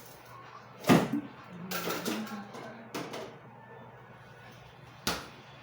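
Kitchen clatter: a few sharp knocks of things being handled, with a louder knock about a second in and another near the end, like a cupboard door or pot being set down.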